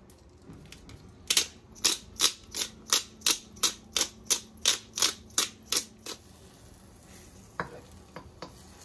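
Hand-twisted pepper grinder clicking as it grinds black peppercorns, a regular run of sharp clicks about three a second for nearly five seconds. A couple of light knocks follow near the end.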